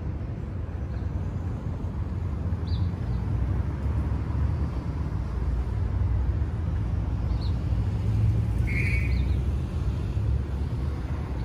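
City street ambience: a steady low rumble with a few short bird chirps over it, and one slightly longer call about eight seconds in.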